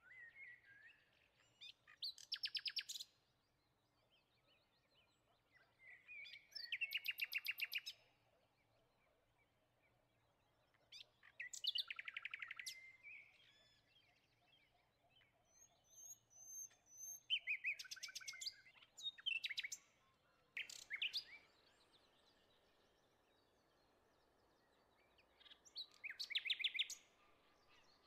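A bird singing: short bursts of quick, high chirps, each about a second long, coming roughly every five seconds.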